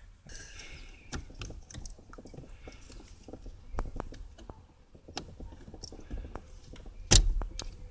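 Small scattered clicks and taps of a replacement Škoda Felicia ignition switch and its wiring plug being handled and fitted to the steering column, with a sharper knock about seven seconds in.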